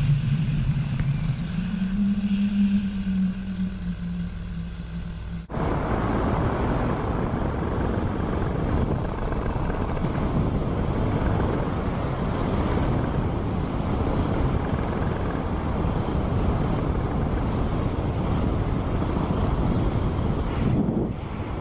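Paramotor engine and propeller running in flight, a steady drone that rises a little in pitch and eases back over the first few seconds. About five seconds in the sound cuts abruptly to a dense, steady rush of engine and wind noise.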